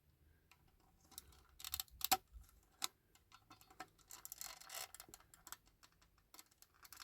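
Irregular small clicks, ticks and light scrapes of a tool working on the metal and plastic parts of a 1/18 scale diecast model car, prising at the front wheel and suspension spring assembly. A few sharper clicks come about two seconds in.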